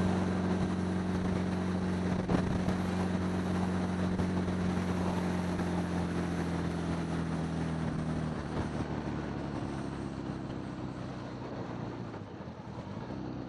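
1975 Honda Gold Wing's flat-four engine running at a steady cruise, with wind rushing over the helmet microphone. About eight seconds in, the engine note drops and the sound grows quieter.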